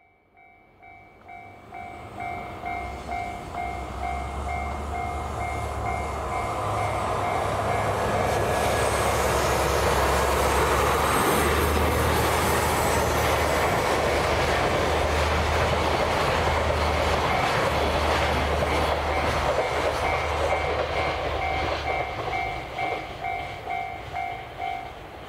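Freight train of container wagons behind a JR Freight DF200 diesel locomotive rolling past: the rumble and the clatter of wheels over the rail joints build up, hold at their loudest, then fade. A level-crossing bell rings in an even ding-ding rhythm throughout, drowned out while the train is loudest.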